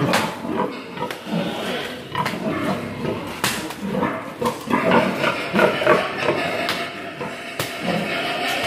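Domestic pigs grunting over and over in short, irregular grunts, with a few sharp knocks.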